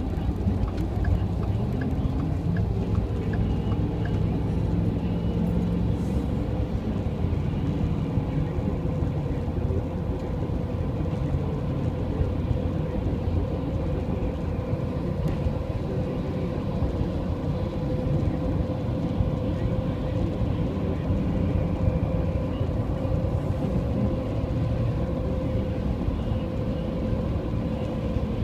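Steady road and engine rumble heard inside a moving car's cabin, with a faint steady hum over it.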